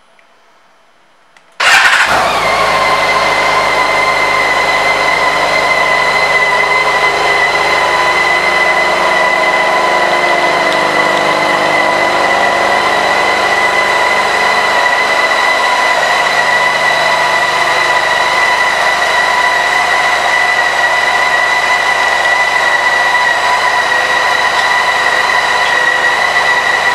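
BMW K1600 GTL's inline-six engine starting up suddenly about a second and a half in, then idling steadily and loudly with an even, unchanging note.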